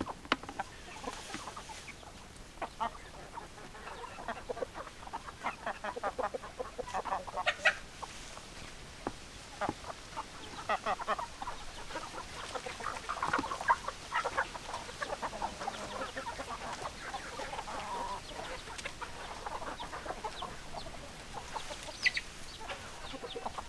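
Chickens clucking: many short clucks come and go throughout, busier in stretches, with a sharper, higher call near the end.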